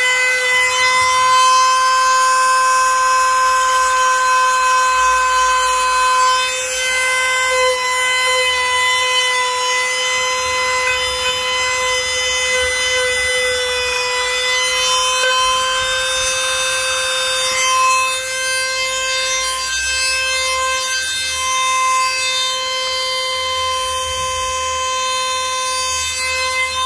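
Power tool motor whining at a steady pitch while grinding or sanding, with a gritty hiss that swells and fades as it works the material.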